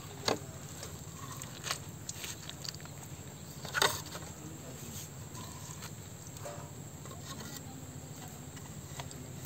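Light knocks and clicks of short PVC pipe pieces being handled and laid into wet mud by hand, a few separate sharp ones, the loudest about four seconds in.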